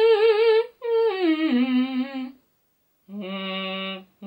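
A woman vocalising long wordless held notes with vibrato. A high note is held, then glides down to a lower held note. After a short gap, another low note is held steady.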